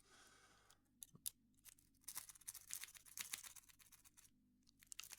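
Faint, rapid metallic clicking and scratching of a lock-pick rake being worked in and out of a laminated pin-tumbler padlock.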